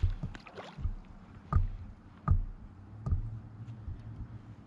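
Several sharp knocks and thumps on a kayak's hull, roughly one a second, with light water sloshing as a hooked fish is brought alongside.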